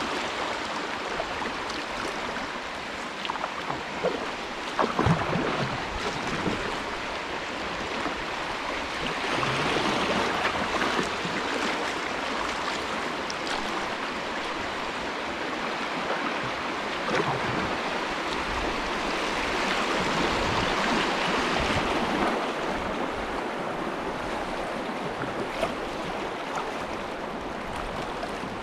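Shallow river riffle rushing and splashing around a kayak as it runs down the choppy water, swelling louder twice, with a couple of thumps about five seconds in.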